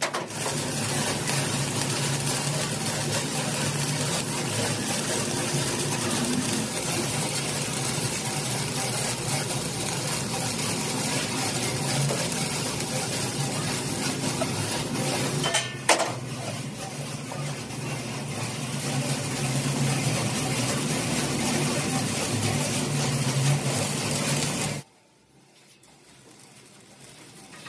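Stick arc welding on a steel air compressor tank: a steady sizzling hiss over a low hum, broken by one sharp click about sixteen seconds in, and cutting off abruptly near the end.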